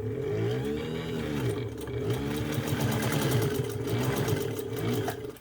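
Kenmore 117.552 straight-stitch sewing machine with a friction-drive motor, sewing through a single layer of cowhide leather with an ordinary needle. The motor's hum rises and falls in pitch as the speed changes, with fast needle ticking in the middle, and it stops near the end. It goes through the layer easily.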